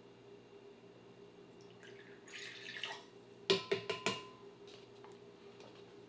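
Water poured from a plastic cup into a measuring pitcher, a short splashing pour of about a second midway, followed by a few sharp knocks as the cup and pitcher are handled and set down.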